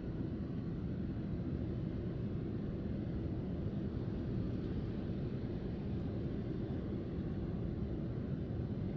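Steady low rumble inside a Boeing 787-9 airliner cabin on landing approach: engine and airflow noise heard from a window seat beside the engine, even throughout with no distinct tones.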